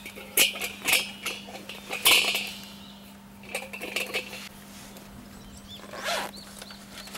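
Metal clanking and clinking as the folding wire legs of a round steel fire pan are swung out and it is set down, with the loudest clank about two seconds in.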